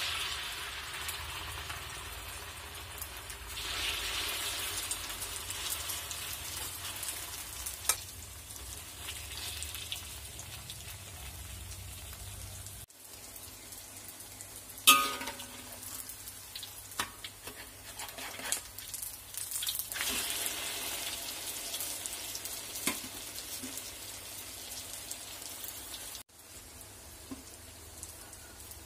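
Kuey teow noodles mixed with egg sizzling and frying in hot oil in a steel wok. The sizzle surges as the noodles go into the oil, then settles to a steady crackling hiss with small scrapes and clicks, and one sharp, briefly ringing knock about halfway through.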